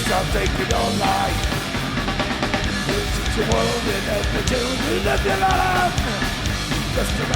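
A live heavy rock band playing: a drum kit and distorted electric guitars, with a wavering melodic line that sounds like a singer.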